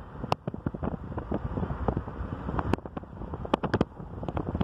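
Wind buffeting the microphone of a slowly moving car, with road noise underneath and irregular sharp pops from the gusts.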